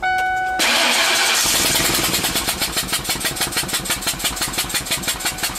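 A short electronic chime, then a Ford Triton engine cranks, catches and idles with a loud, fast, even chuffing, about six puffs a second. The chuffing is combustion gas blowing out of an open spark plug hole: a plug has blown out of the cylinder head and stripped its threads.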